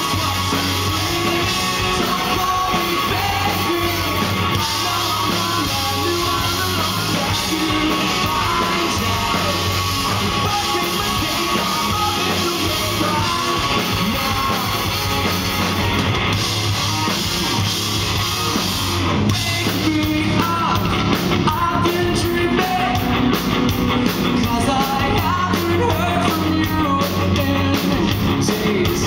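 Pop-punk band playing live, heard from the crowd: a singer over electric guitars, bass and drums. About two-thirds of the way through the band gets louder and the drumming busier.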